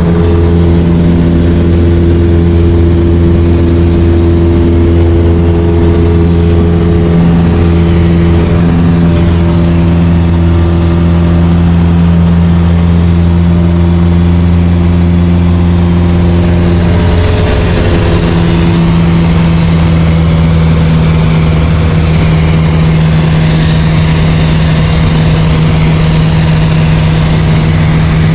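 A light aircraft's piston engine and propeller drone steadily and loudly, heard from inside the cabin in flight. The engine note shifts slightly about two-thirds of the way through.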